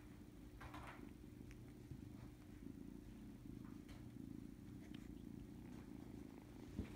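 A kitten purring steadily and faintly, with a few soft clicks over it.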